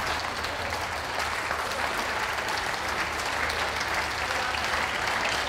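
Audience applauding: a steady, continuous round of clapping.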